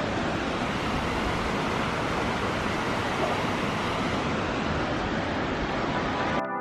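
A steady, even rushing noise that cuts off abruptly near the end.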